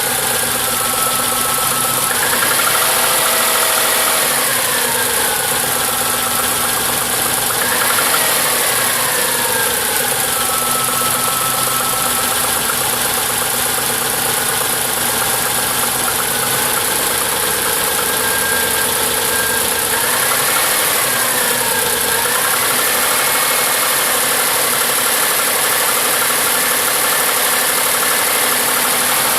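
Subaru Impreza's EJ20 flat-four engine running after a cold start, its pitch rising and falling a few times. The owner suspects a knocking in it at cold start may come from the rods, a sign of engine failure.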